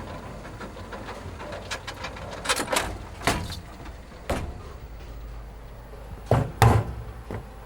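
Irregular knocks and clicks, a dozen or so, with two loud thumps close together near the end, over a faint low hum.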